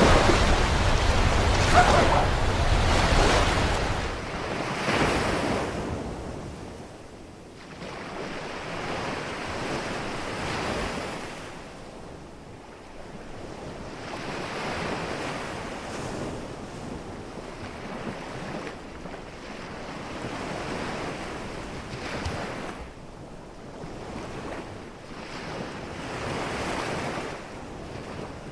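Surf washing onto a sandy beach, swelling and falling every few seconds, with some wind. The tail of music fades out in the first few seconds.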